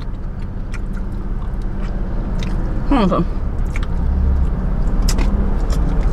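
Close-up eating sounds of fried chicken: short wet clicks and smacks of biting and chewing, with a brief falling 'mm' about three seconds in, over a steady low rumble from the car.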